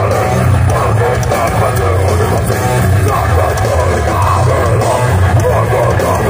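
Heavy metal band playing live: distorted electric guitar, bass guitar and drum kit, loud and dense without a break.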